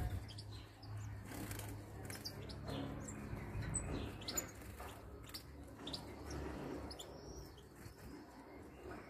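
Caged European goldfinches giving scattered short, high chirps, with soft rustling ticks over a low steady hum.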